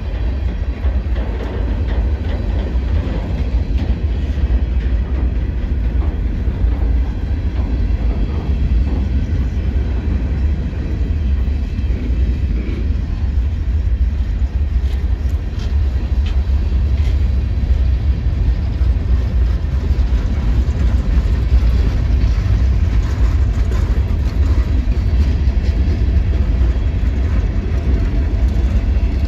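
Freight cars of a long mixed train (tank cars, covered hoppers, boxcars) rolling past: a steady low rumble of steel wheels on rail, with faint clicks from the wheels and couplers.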